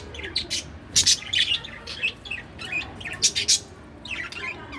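Pet budgerigar chirping: a rapid string of short, high chirps, loudest about a second in and again just past three seconds.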